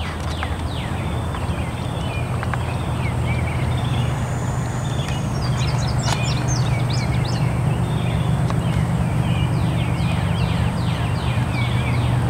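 Low, steady drone of distant diesel locomotives slowly growing louder as a freight train approaches, with songbirds chirping over it in quick downward-sweeping notes.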